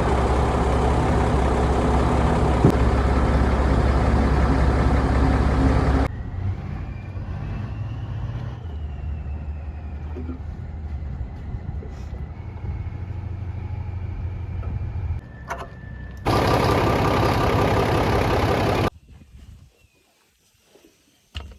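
Dump truck engine running. It is loud for the first six seconds, then settles to a quieter steady idle, is loud again for a few seconds near the end, and then the sound drops almost to silence.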